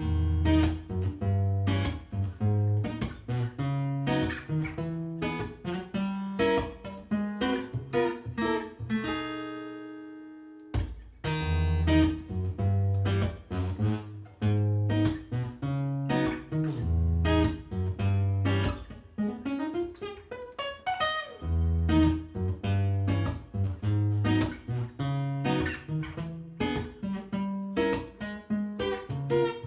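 Yamaha APX3 acoustic-electric guitar played through a PA, plucking single notes over strong bass notes. About nine seconds in a chord is left to ring and die away, and around twenty seconds there is a rising slide up the neck.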